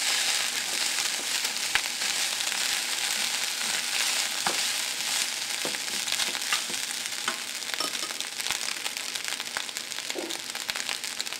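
Fried rice sizzling in an oiled frying pan as it is stirred with chopsticks, a steady hiss with scattered light clicks of the chopsticks against the pan.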